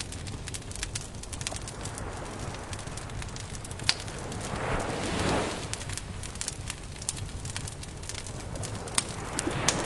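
Wood campfire crackling, with frequent sharp pops and snaps over a low steady rumble. A soft rushing swell rises and fades about halfway through, and again near the end.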